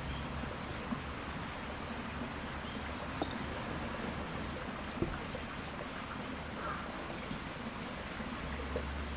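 Steady outdoor background noise, with a crow cawing faintly once about two-thirds of the way in and a few small clicks.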